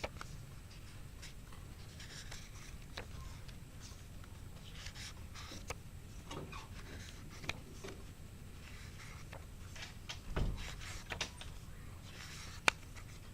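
Paper rustling and page handling as an album booklet is leafed through, with scattered light clicks and taps. A dull thump comes about ten seconds in and a sharp click near the end.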